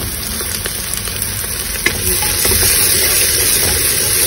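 Green peas, diced carrots and sliced onions sizzling in hot oil in an aluminium pot, getting louder about two seconds in after a sharp clack. Near the end a spoon stirs the vegetables around the pot.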